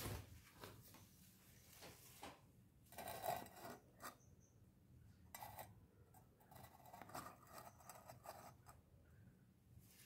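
Faint, scattered rustles and scuffs of a hand handling a small bird on a hard floor, loudest about three seconds in.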